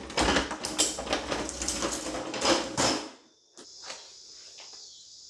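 A run of clattering knocks and rustling over a low rumble for about three seconds, like equipment and cables being handled. It then stops suddenly, leaving a faint steady hiss.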